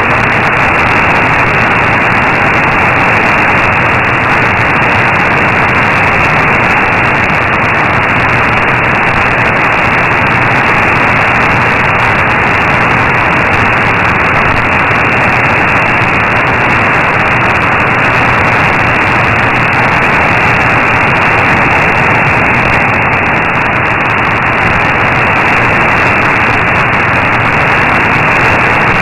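Steady, loud shortwave static: the hiss of an AM receiver tuned to 15476 kHz, with no programme heard through it. The station's signal is at the noise floor.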